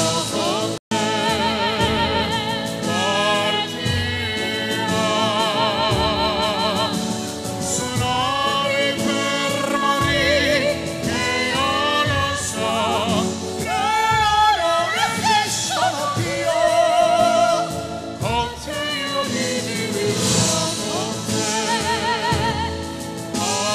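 Live band song with a solo singer holding long notes with a strong, wide vibrato, in a powerful operatic-pop style. The sound drops out for an instant about a second in, like an edit cut.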